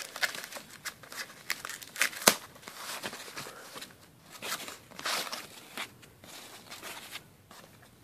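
Thin plastic wrapping crinkling and rustling as hands pull it off a part, in irregular crackles with one sharp snap about two seconds in, dying away near the end.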